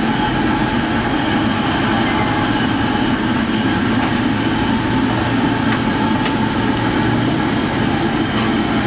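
Cubes of stinky tofu deep-frying in woks of hot oil at a street-food stall, giving a steady, continuous frying noise over a constant low rumble.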